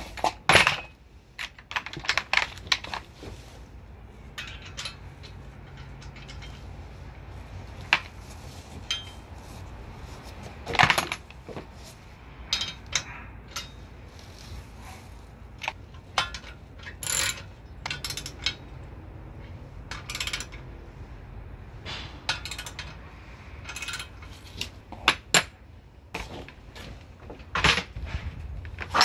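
Loose steel bolts, nuts and washers clinking and rattling as they are picked through in a plastic parts tray and handled against the steel frame of a hydraulic shop press: irregular sharp clinks and clacks with a few louder metallic knocks.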